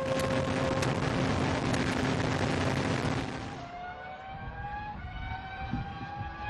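Formula One car engine running at high revs. For the first few seconds its note is buried in a loud rush of noise. From about four seconds in it is heard as a clear high-pitched note, rising slowly as the car accelerates.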